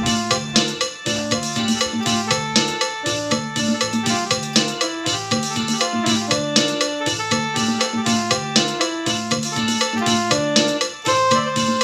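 Casio CTK-4400 portable keyboard playing a Thai-style rhythm pattern, with drums keeping a steady beat under keyboard melody and bass notes.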